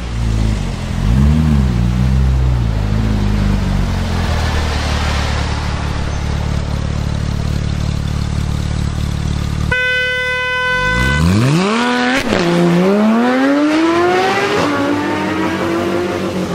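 Porsche 911 GT3's flat-six engine: a quick rev blip, then a steady idle. About ten seconds in, a high steady tone cuts in for about a second. Then the engine accelerates hard, its pitch climbing steeply through gears with two sharp upshift drops.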